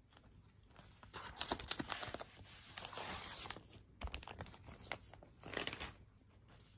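A paper inner sleeve and cardboard record jacket rustle and crinkle as a vinyl LP is slid out. The rustling starts about a second in and lasts a couple of seconds, followed by a few light knocks and a second, shorter rustle near the end.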